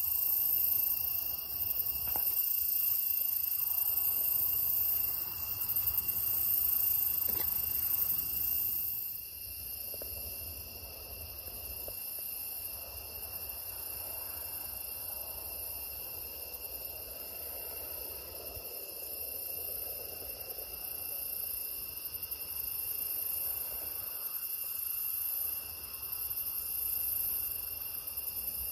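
Night chorus of crickets and other insects: several steady, overlapping high-pitched trills at different pitches, a little quieter from about nine seconds in.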